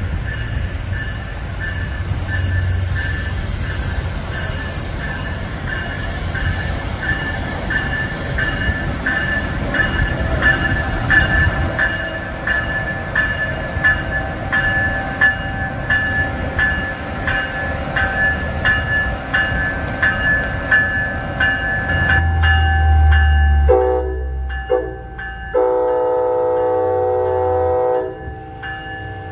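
Amtrak electric train passing, its wheels clicking in an even rhythm over the rail joints. Near the end a train horn sounds twice: a short blast, then a longer one of about two seconds that cuts off sharply.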